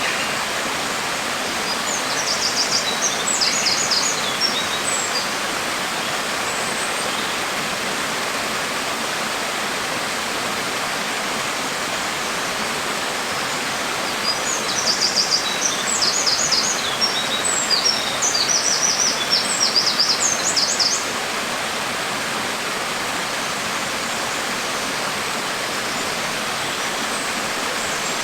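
Steady rain hiss. Birds chirp over it twice in runs of quick high notes, briefly about two seconds in and for several seconds a little past the middle.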